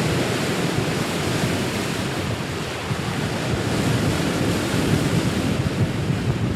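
Steady rush of wind and open-sea waves, with wind buffeting the microphone.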